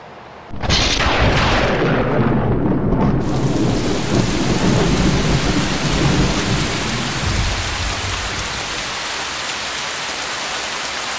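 A sudden clap of thunder about half a second in, rumbling on for several seconds, with steady rain starting a few seconds in and continuing as an even hiss.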